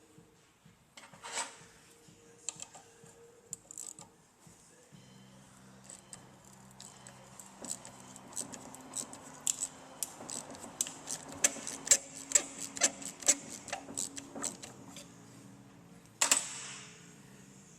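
Metallic clicking and clinking of hand tools working on the fuel filter's mounting hardware, with a run of sharp clicks at a few per second through the middle and a louder scrape near the end.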